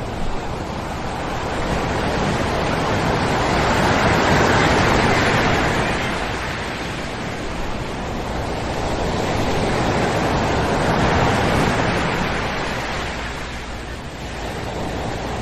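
Ocean surf breaking and washing up on a sandy beach. Two waves swell and fade, loudest about four seconds in and again about eleven seconds in.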